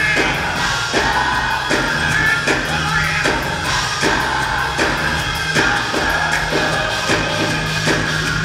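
Gospel choir singing with a live band, drums keeping a steady beat under the voices over a low bass line.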